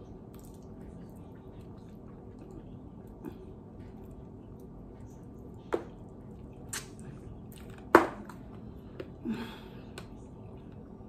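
A person eating chicken wings, with wet chewing and a few sharp lip smacks and clicks in the second half, the loudest about eight seconds in. A faint steady hum runs underneath.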